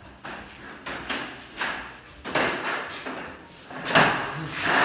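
Bundles of galvanized steel drywall profiles being set down and slid onto a stack, metal clattering and scraping in a run of short bursts, with a sharp clank about four seconds in.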